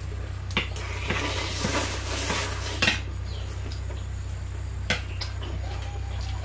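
A fork clinking and scraping against a bowl of noodles while eating. A few sharp clicks and a longer scrape come about a second in, over a steady low electrical hum.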